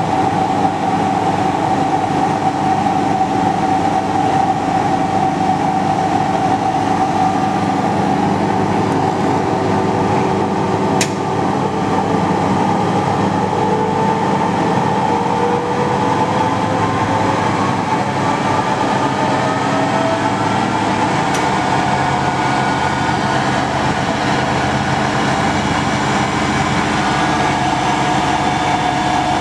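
Denford Viceroy 280 VS variable-speed lathe running under power with a steady mechanical whine. Near the middle its pitch rises over several seconds as the spindle speed is turned up, then holds steady. Two sharp clicks, about eleven and twenty-one seconds in.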